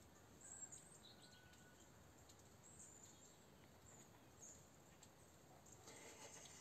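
Near silence: faint room hiss with a few faint, brief high chirps.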